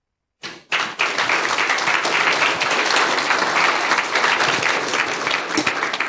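Audience applauding at the end of a talk. The applause starts suddenly about half a second in and eases off slightly near the end.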